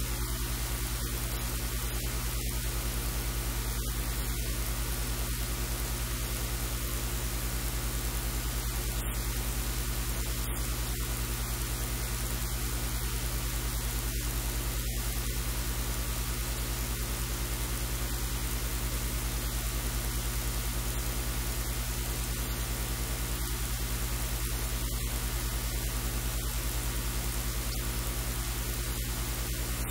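Steady hiss with a low electrical hum, unchanging throughout; no other distinct sound stands out.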